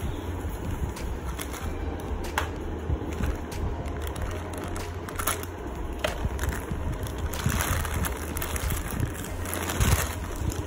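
Thin plastic bag crinkling and rustling as a boxed Bluetooth speaker is slid out of it, in irregular crackles that are loudest near the end, over a steady low hum.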